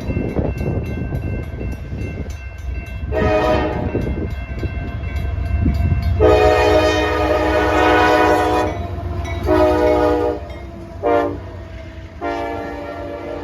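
A CSX freight locomotive's multi-chime air horn sounding over the low rumble of the train: a short blast about three seconds in, then long, long, short, long. That last run is the grade-crossing signal, and its final long blast is held through the end.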